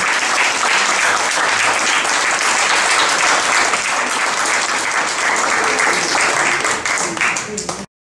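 Audience applauding steadily, cut off abruptly near the end.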